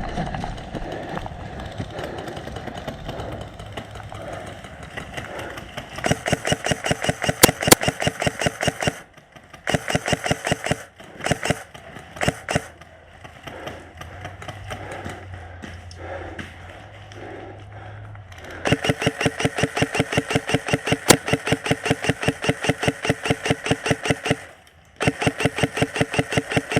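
Airsoft gun firing rapid full-auto bursts, a fast buzzing rattle of shots. Several bursts come in the first half, then a long burst of about six seconds and another near the end.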